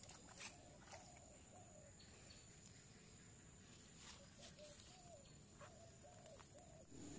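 Quiet pond-side ambience: insects trilling steadily at two high pitches, with birds giving short low calls a few at a time. A brief faint splash about four seconds in as a hooked carp is lifted out of the water.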